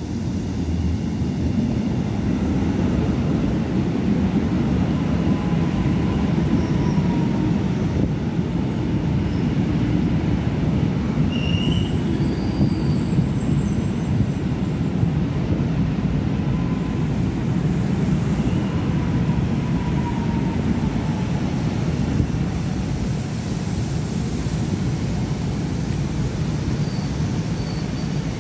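Korail 311000-series Line 1 electric train rolling past at close range as it enters the station: a steady low rumble of wheels on rail, with a few faint high tones and squeaks now and then.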